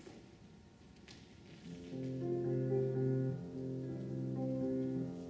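Instrumental ballet-class accompaniment music starts about two seconds in, slow held notes and chords for a barre exercise.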